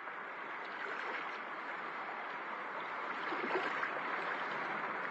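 Steady rushing noise from a tractor approaching along the road, growing slowly louder.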